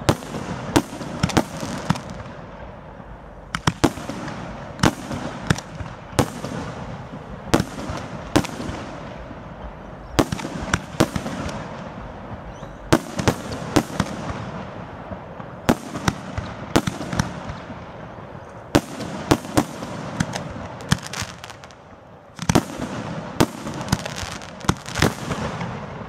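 Aerial firework shells bursting in quick, irregular succession: sharp bangs, often several close together, over a steady background noise. About four seconds before the end the noise dips briefly, then a new run of bangs starts.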